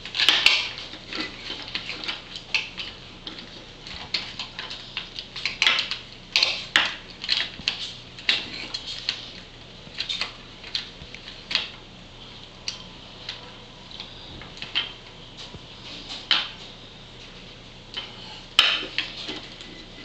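Plastic action figure and toy motorcycle being handled: irregular clicks, knocks and scrapes of plastic parts against each other and on a wooden tabletop, with louder clusters now and then.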